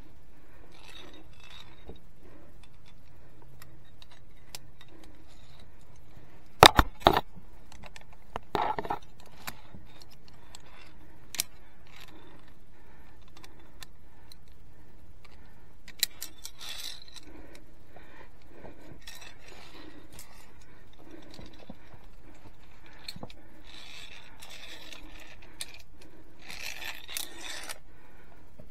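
Via ferrata carabiners clinking and clacking against the steel safety cable as the climber moves along it. The loudest snaps come in a close pair about a third of the way in, followed by a few scattered clicks and a scraping rustle near the end.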